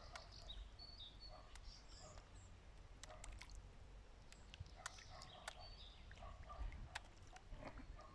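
Faint sharp clicks and small splashes from fish slurping bread at the water's surface, with a few high bird chirps early on and a low wind rumble.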